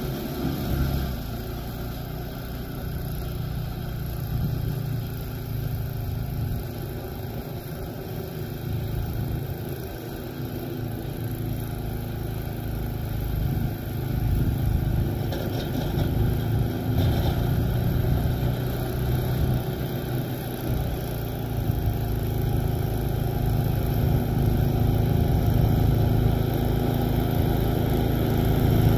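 Gas walk-behind snow blower engine running steadily under load while clearing snow, getting louder in the second half as the machine comes closer.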